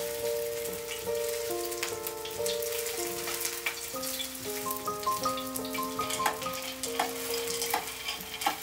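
Chive pancakes sizzling in oil on a griddle over a portable gas burner, with scattered light clicks of chopsticks and a spatula, under soft background music of slow held notes.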